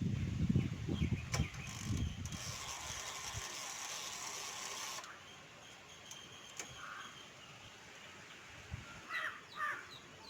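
Clicks, knocks and rattling of a Godrej manual typewriter's typebar and lever mechanism being worked by hand, loudest in the first couple of seconds. Birds call with a few quick chirps near the end.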